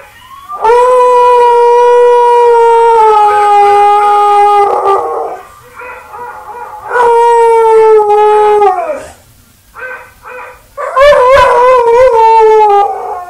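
Dog howling: three long howls, the first two held steady and sliding down at the end, the last one wavering in pitch.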